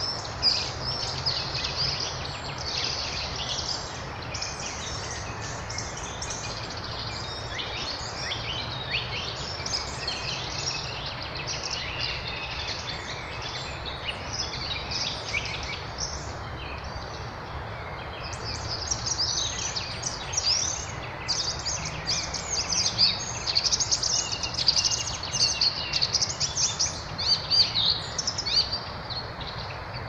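Several songbirds singing at once: a dense chorus of high chirps and trills, busiest and loudest in the second half, over a steady low background hum.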